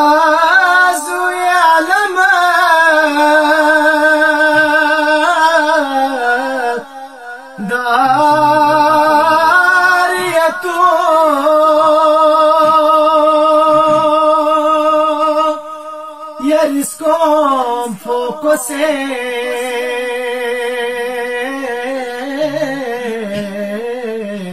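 A man singing a Balti qasida unaccompanied: a slow devotional line with long held, wavering notes, broken by short pauses for breath about seven seconds in and again around sixteen seconds in.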